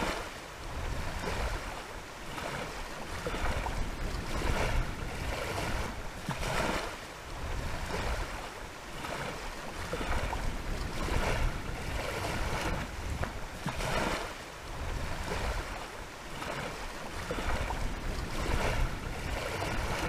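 Wind and waves washing on a lake shore, the noise swelling and easing every second or two, with wind rumbling on the microphone.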